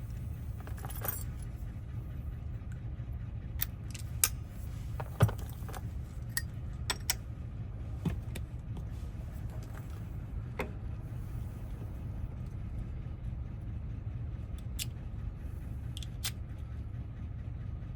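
Scattered metallic clicks and light clinks of a key being worked in a car door lock cylinder. The key sticks short of full insertion because of corrosion inside the lock. A steady low hum runs underneath, and the sharpest clicks come about four and five seconds in.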